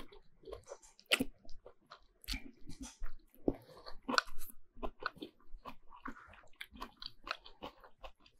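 A person chewing and slurping thick noodles in beef broth, close-miked: a run of short, wet mouth noises with a few longer slurps.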